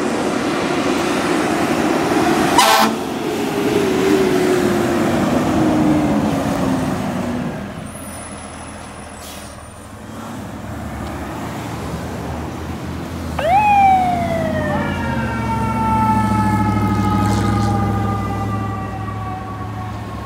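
Fire trucks passing with their engines and tyres loud, a horn blast about two and a half seconds in, then a siren tone sliding slowly down. After a short lull, a siren climbs sharply twice and winds slowly down over a truck engine's low rumble.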